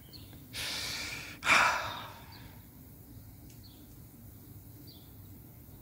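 A single breathy sigh: a long noisy breath in, then a shorter, louder breath out about a second and a half in.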